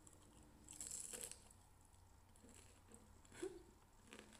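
Faint crunch of a bite into a battered, deep-fried quail egg (kwek-kwek) about a second in, followed by a few soft chewing sounds.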